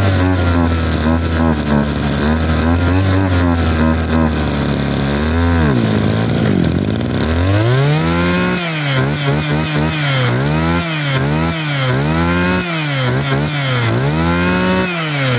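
Mitsubishi TL23 two-stroke brush cutter engine running, its throttle worked by hand at the carburettor. It runs fairly level for about five seconds, then is revved up and down over and over, about once a second. It struggles to pick up fuel, which the seller puts down to a kinked fuel line.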